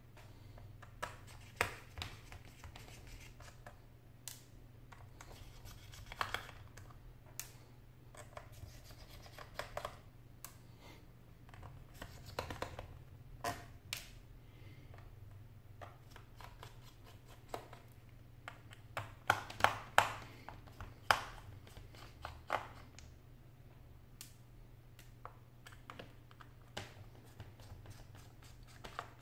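Hands and a small screwdriver working on an Asus ultrabook's bottom case and screws: scattered light clicks, taps and scrapes, with a quick run of louder clicks about two-thirds of the way through. A low steady hum runs underneath.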